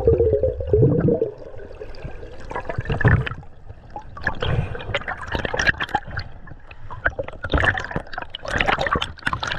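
Water splashing and gurgling in irregular bursts, with sharp clicks and knocks mixed in.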